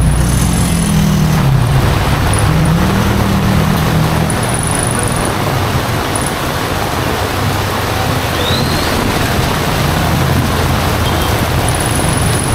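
Heavy rain pouring down in a steady, even hiss, with a motor vehicle's engine passing in the first few seconds.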